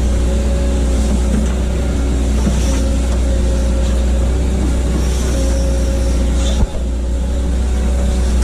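Hitachi excavator's diesel engine running steadily with a deep drone, with a brief sudden dip about two-thirds of the way through.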